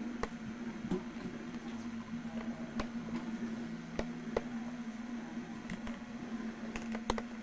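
Scattered sharp little clicks and taps of a kitten's paws and claws on a hardwood floor and mirror as it plays, about seven at irregular times, over a steady low hum.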